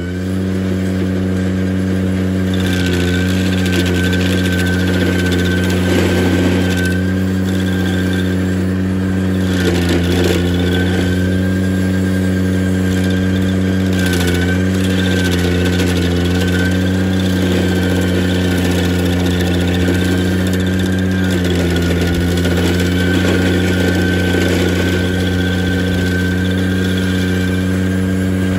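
Ventrac compact tractor's engine running steadily while driving a stump grinder attachment whose cutter wheel grinds a small stump down into the ground. There are rough grinding spells, and the engine's pitch sags briefly under load about 14 and 21 seconds in.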